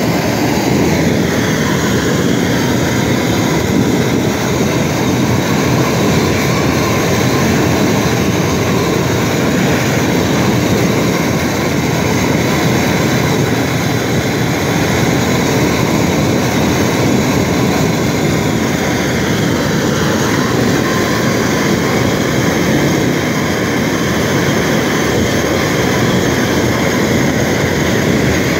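Long-wand torch with a bell nozzle burning steadily with a loud rushing flame as it heats stainless steel to turn it blue. Its tone shifts slightly as the flame is moved across the metal.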